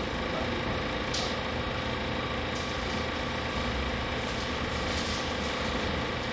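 Steady mechanical hum of a ship's bridge simulator room, with a few faint clicks.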